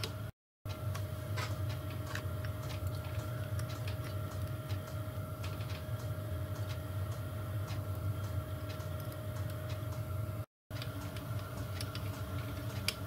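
Light, irregular metallic clicks and taps of small lathe parts being handled as the miniature lathe's cross-slide feed screw, dial and handle are fitted and turned, over a steady hum. The sound drops out briefly twice.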